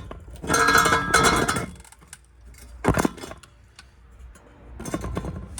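Metal clattering and clinking with a brief ringing for about a second and a half, then a single sharp click about three seconds in, followed by a few faint ticks.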